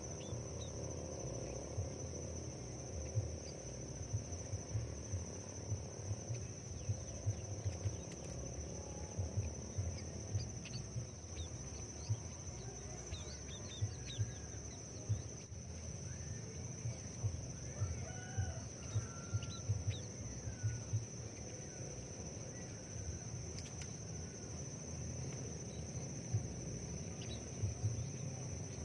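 Outdoor ambience: a steady high insect drone, with many short small-bird chirps scattered through the middle, over a gusty low rumble on the microphone.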